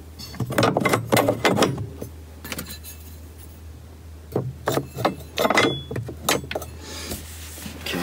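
Plastic battery securing bracket knocking and rattling as it is worked back into place over the battery, in two spells of clatter, the first about half a second in and the second about halfway through.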